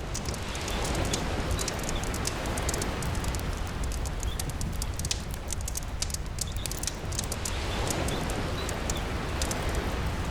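Soundscape of a crackling campfire, rain and sea: dense, sharp fire crackles over a steady hiss of rain, with surf swelling about a second in and again about eight seconds in.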